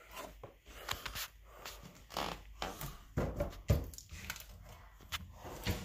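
Irregular rustling and clicks of handling and moving about, with a few dull thumps, the loudest about three and a half seconds in.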